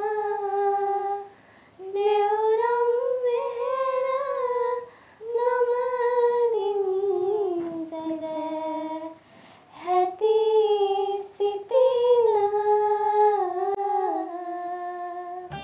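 Two girls singing a slow devotional verse in unison without accompaniment, holding long notes that glide gently in pitch, with brief pauses for breath between phrases.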